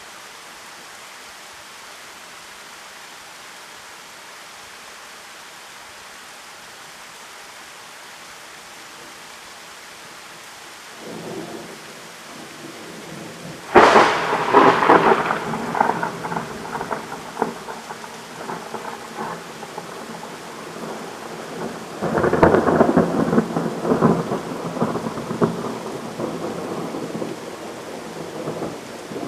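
Steady pouring rain, then thunder: a low rumble about eleven seconds in, and a few seconds later a sudden, loud thunderclap that rolls on for several seconds. A second loud roll of thunder comes in about two-thirds of the way through, over the rain.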